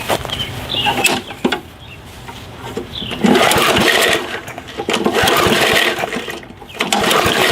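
Push lawn mower's small gas engine cranked over by its pull-cord recoil starter, in a long stretch about three seconds in and again near the end, turning over without catching. It does not seem to be firing at all, which points to a fuel problem.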